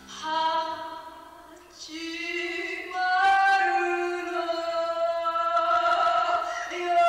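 A woman singing into a microphone, her voice swelling from about two seconds in and holding long, sustained notes.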